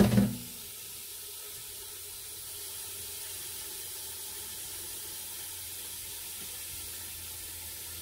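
Kitchen faucet running a steady stream of water into a stainless steel bowl, refilling it over rinsed chicken breasts, after a brief thump at the very start.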